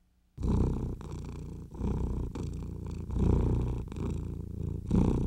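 A cat purring close up, the purr swelling and fading with each breath about once a second. It starts suddenly about half a second in.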